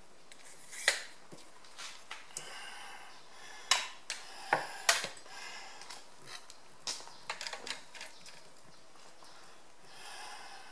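Scattered sharp clicks and knocks as a cast-metal tractor brake master cylinder is handled and pressed by hand, the loudest about a second in and around four to five seconds in.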